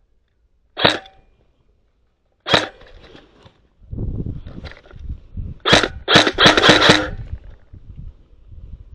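Airsoft gun firing: a single sharp shot about a second in, another at about two and a half seconds, then a rapid string of shots between about five and a half and seven seconds, the loudest part.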